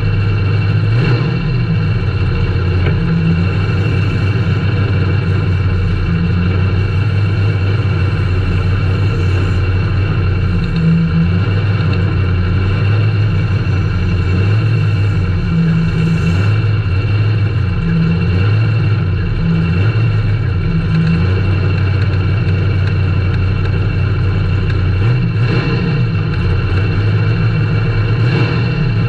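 Small-block Chevy V8 of a mud-drag race truck idling, heard from inside the cab, its low rumble loping unevenly.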